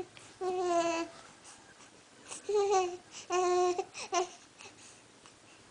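Baby cooing and babbling: a few short vocal sounds, each held at a steady pitch, with pauses between them.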